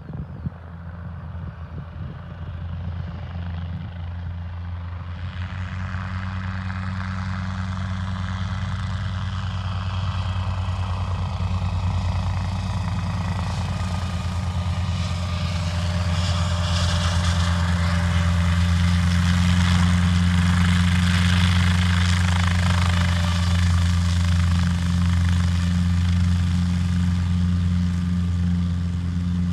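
Guimbal Cabri G2 helicopter flying toward and past, the beat of its rotor and the hum of its piston engine growing steadily louder as it nears. It is loudest about two-thirds of the way through, then eases a little.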